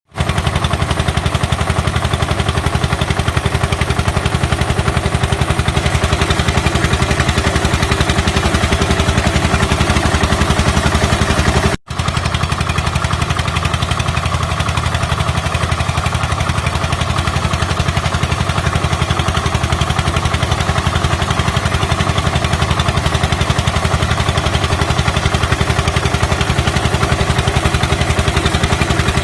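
Eicher 241 tractor's single-cylinder air-cooled diesel engine running steadily under load while it pulls a rotavator through the soil, with a fast, even knock from its firing strokes. The sound cuts out for an instant about twelve seconds in.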